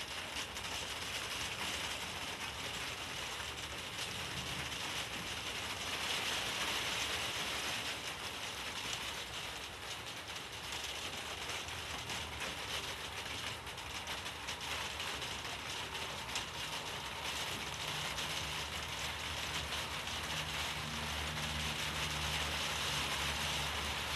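Steady hiss of rain falling during a thunderstorm. In the second half a low rumble comes in under it.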